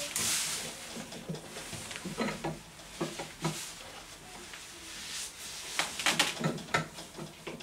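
Scattered clicks, light knocks and rustling of hands working inside a glass reptile terrarium to lift out a snake, with a denser run of clicks about six seconds in.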